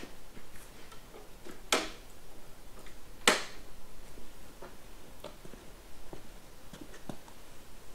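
Footsteps on a concrete shop floor: a string of uneven sharp knocks, the two loudest about two and three seconds in, then fainter steps.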